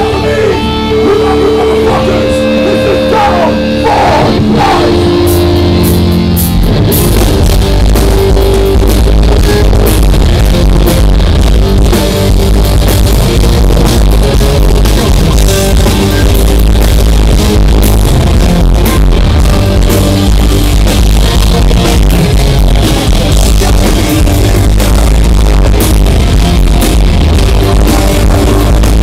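Metal band playing live through a club PA, with distorted electric guitars, bass and drum kit. Held guitar notes ring for the first few seconds, then the full band kicks in about six and a half seconds in and plays on hard and loud.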